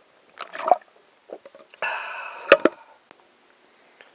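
Drinking from a plastic bottle: a short cluster of gulps and swallows, then a brief rush of breath-like noise with one sharp click in the middle of it.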